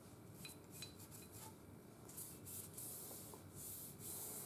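Small gun-cleaning bristle brush scrubbing the oil-coated steel barrel of a Mossberg 590 Shockwave shotgun to lift light surface rust: a run of faint quick brushing strokes, the last few longer.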